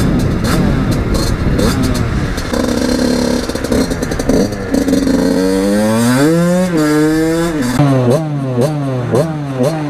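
Engine of a 50cc supermoto motorcycle running under way with rushing air noise. About five seconds in it revs up and falls away as the bike slows. Near the end come several short, quick revs, each rising in pitch.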